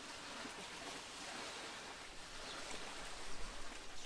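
Steady, even rushing noise of the outdoors, with no distinct events in it.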